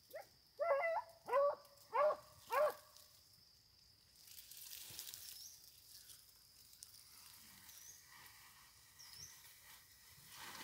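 Hunting dog barking in a quick run of about five barks in the first three seconds, then falling quiet.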